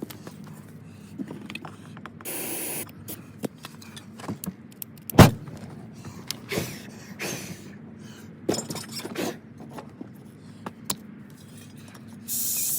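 Starting fluid hissing from an aerosol can in short sprays, with scattered clicks and knocks, and a single loud bang about five seconds in as the fluid ignites inside the riding mower tire to try to blow the bead back onto the rim. The attempt does not seat the bead.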